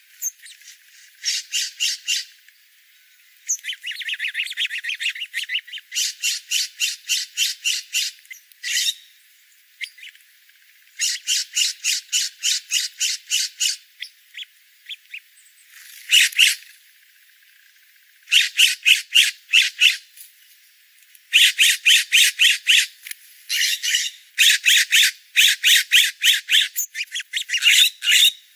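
Birds calling: runs of quick, sharp, high notes, several a second, repeated in bursts of a second or two with short pauses between.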